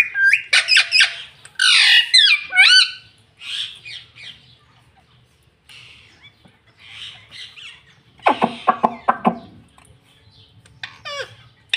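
Indian ringneck parakeet squawking and chattering in bursts of sharp calls that glide up and down in pitch, busiest in the first three seconds and again about eight seconds in, with a short burst near the end.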